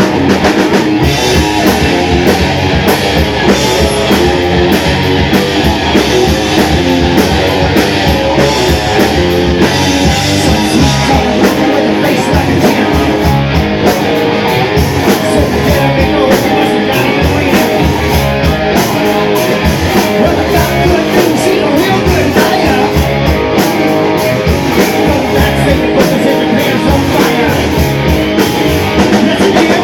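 Rock band playing loudly: guitar and drum kit without a break.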